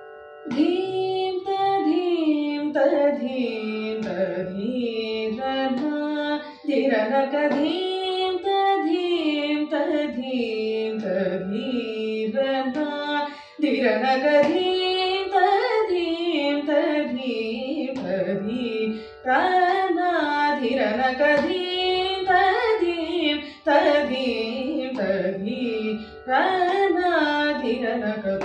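A woman's solo voice singing a Carnatic thillana in raga Brindavani, in phrases with short breaths between them. Under it runs a steady drone from a small electronic shruti box. The singing starts about half a second in.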